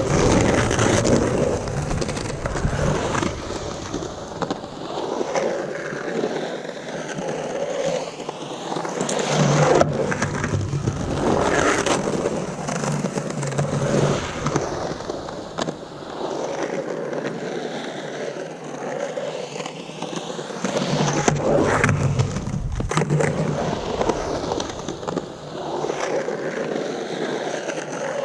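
Skateboard on Santa Cruz Slime Balls 97a urethane wheels rolling on the concrete of a bowl while carving. The rolling roar swells and fades with each pass up and down the transitions, with a few sharp knocks along the way.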